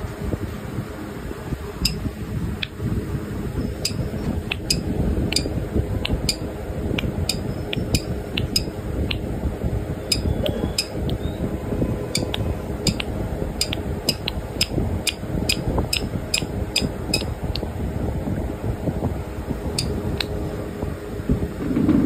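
Steady low fan noise in a room, with a run of sharp, irregular clicks, several a second, that come thickest through the middle stretch.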